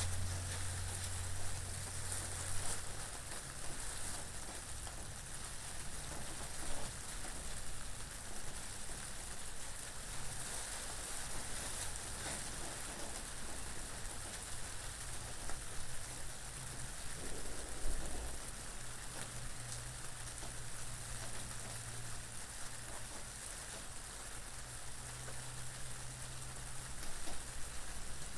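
Steady rain falling, with wind and a low rumble underneath.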